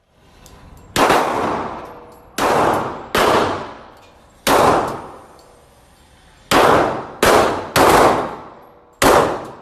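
Eight single gunshots fired at an uneven pace, each followed by an echoing tail that dies away over about a second.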